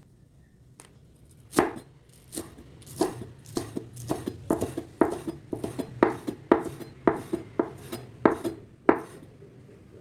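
Knife chopping food on a cutting board: about fourteen separate strokes, roughly two a second, starting about a second and a half in and stopping about a second before the end.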